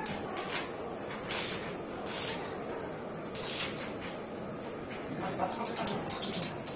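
Stainless steel railing panel being handled and fitted between the posts: several short scrapes and light clinks of metal against metal, more of them close together near the end.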